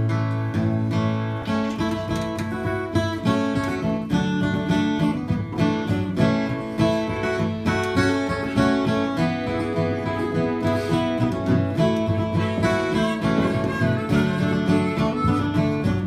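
Acoustic guitars and a banjo playing an instrumental folk introduction, plucked notes in a steady rhythm.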